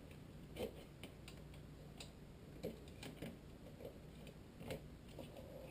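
About half a dozen faint, irregular clicks and taps of a flathead screwdriver working a motorcycle clutch cable out of the slot in its bracket.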